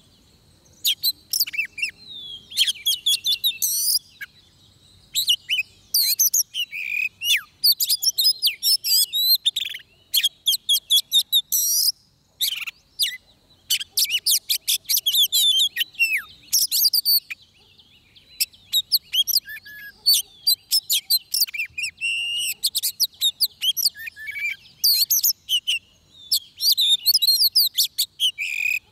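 Oriental magpie-robin singing close by: long, varied phrases of clear whistles mixed with rapid chattering trills, broken by short pauses.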